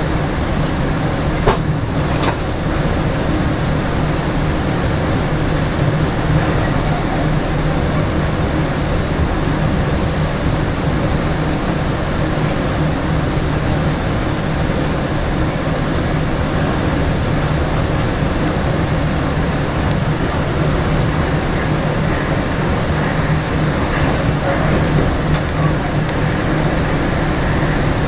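Electric passenger train running at speed on the track, heard from inside the front cab: a steady rumble and hiss with a low hum. A couple of sharp clicks come about two seconds in.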